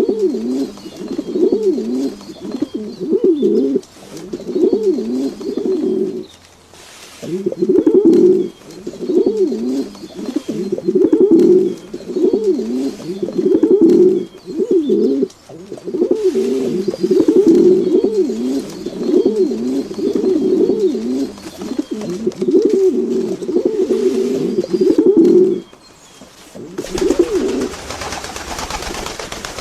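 A bird cooing over and over in low, repeated phrases. Near the end the cooing stops and a steady hiss takes over.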